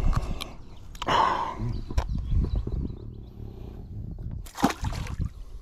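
Handling noises from unhooking a caught pike with pliers: rustles, clicks and knocks over a low rumble on the microphone, with a sharp knock near the end.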